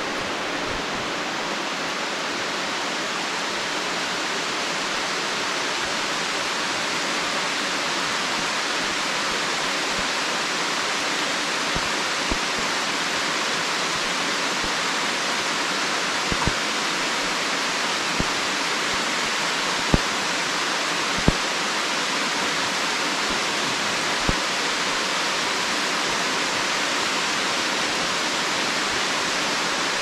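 Steady rain falling, an even hiss throughout, with a few sharp ticks in the second half.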